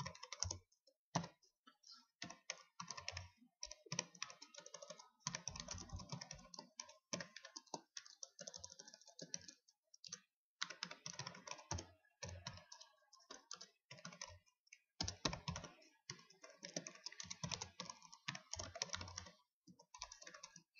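Typing on a computer keyboard: quick runs of keystrokes broken by short pauses.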